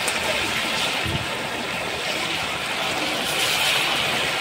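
Masala-coated fish pieces deep-frying in a wide iron kadai of hot oil: a steady sizzle that grows a little louder after about three seconds as more pieces go in.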